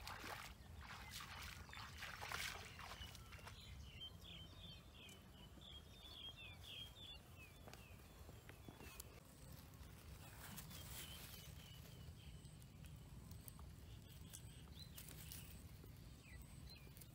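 Feet splashing through shallow muddy water for the first few seconds, then a small bird's quick run of high chirps, with more chirps a few seconds later. All of it is faint.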